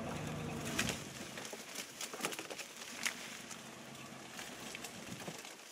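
Vehicle engine running with a low steady hum as it creeps along, fading after about four seconds, with scattered crackles and clicks.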